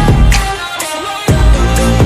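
Background pop music with a heavy bass beat and no vocals.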